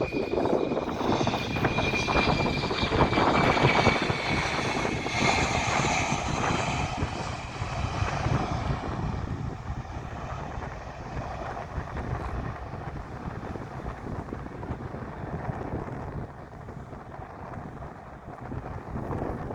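Boeing 717-200's two rear-mounted Rolls-Royce BR715 turbofans at takeoff power: a jet rumble with a high fan whine that dips slightly in pitch, fading steadily as the airliner climbs away.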